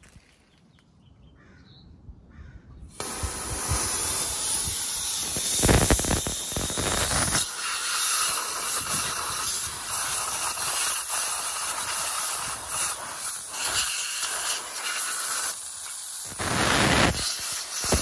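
Compressed nitrogen hissing out of a blow nozzle on a hose. It starts suddenly about three seconds in and runs on steadily, surging louder twice.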